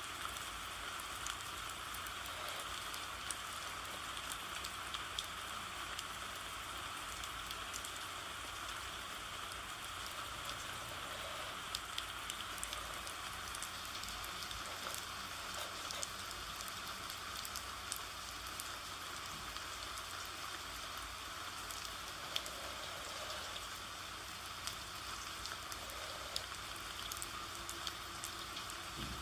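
Steady rain: an even hiss of rainfall with scattered drops ticking on a surface.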